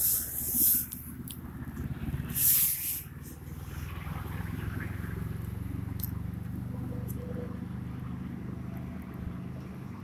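Two short bursts of rushing noise on the microphone in the first three seconds, then a steady low hum.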